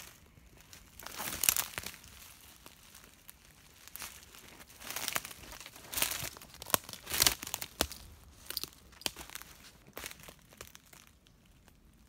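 Footsteps crunching and rustling through dry leaf litter and twigs on a forest floor, in uneven bursts, the loudest about a second and a half in and around the middle.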